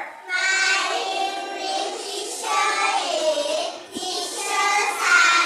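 A child's voice singing over music, in held, sung notes.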